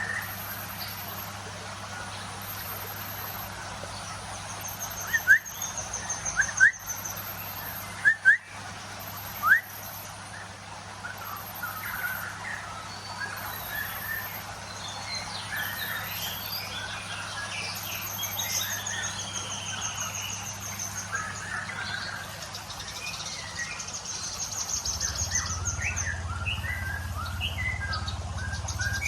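Several birds chirping, calling and trilling. A handful of loud, sharp clicks sound about five to ten seconds in, and a low hum under it all grows louder near the end.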